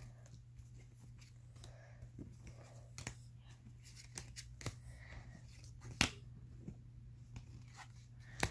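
Pokémon trading cards being handled and dealt one by one onto piles, giving a string of light card slaps and clicks, the sharpest about six seconds in and another near the end. A steady low hum runs underneath.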